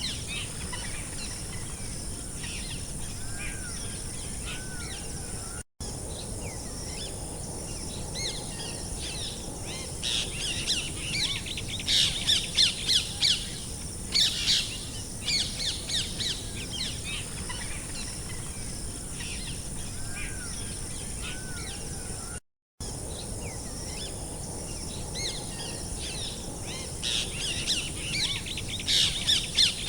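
A chorus of songbirds chirping and trilling, busiest in dense bursts, over a steady thin high-pitched tone. The sound cuts out completely for a split second twice.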